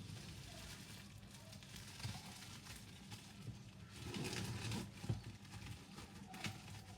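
Faint handling noise from books and packaging being unboxed: scattered light taps and knocks, with a short rustle about four seconds in.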